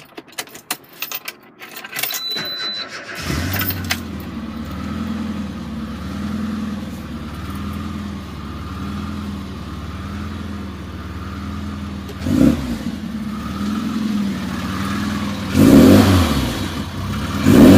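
Rover Mini 1.3i's four-cylinder A-series engine being started: a few clicks, then the engine catches about three seconds in and settles into a steady idle with a gentle swell about once a second. It is blipped three times near the end, the last two revs the loudest.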